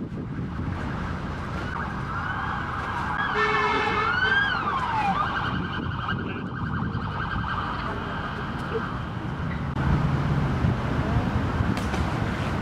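Emergency vehicle siren sounding, its pitch swooping up and down about three to five seconds in, over a steady low rumble of city traffic.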